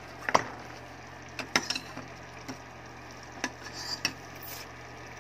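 A metal spoon tapping and scraping against a small ceramic bowl, about eight short sharp clicks spread through, over a steady low hum.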